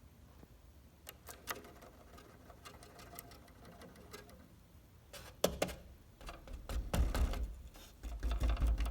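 Relay on a Chamberlain garage door opener's relay board clicking, sparse at first and then chattering rapidly over a low hum. The chatter is the sign of an intermittent connection, which the owner puts down to a cold solder joint on the board.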